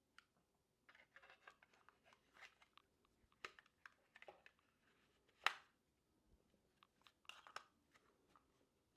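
Faint handling of small camera accessories: scattered clicks and scrapes as a lens filter is fitted to a DJI Osmo Pocket 3, with one sharp click about five and a half seconds in.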